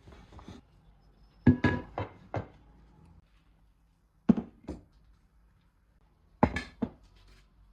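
Die-cast cookware pots and lids being handled and set down, knocking against each other and the surface. There is a clatter of several knocks about a second and a half in, two more a little after four seconds, and another cluster near the end.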